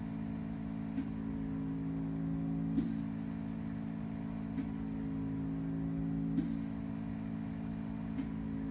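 Background music: a sustained low drone of several held tones, with a soft click repeating about every two seconds.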